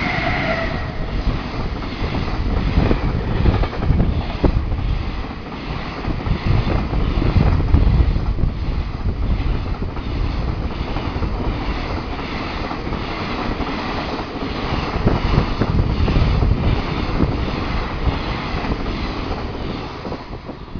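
A loaded container freight train behind an EF210 electric locomotive passes at high speed, with a steady low rumble and a rhythmic clatter of wagon wheels on the rails. A short whine from the locomotive is heard as it goes by at the start, and the sound falls away near the end as the last wagons pass.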